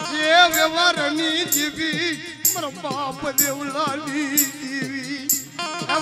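Gujarati folk devotional music: a wavering, ornamented melody over a steady low drone, with a bright percussion stroke about once a second.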